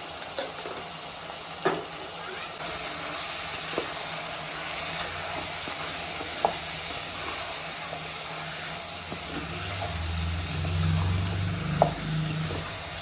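Chicken pieces sizzling in hot oil in a pot while a wooden spatula stirs them through the spice powders, with a few sharp knocks of the spatula against the pot.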